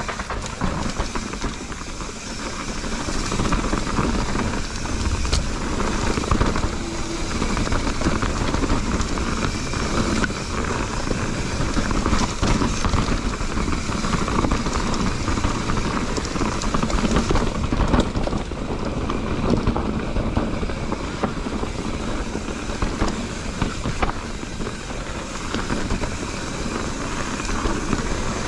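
Mountain bike, a Lapierre Zesty, riding a dirt trail: tyres rolling over gravel and rocks, with the chain and frame rattling in constant small clicks. Wind rumbles on the chest-mounted action camera's microphone.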